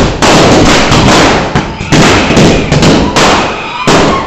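Firecrackers bursting on the ground in quick succession, a loud, continuous crackle of bangs that dips briefly near the end before starting up again.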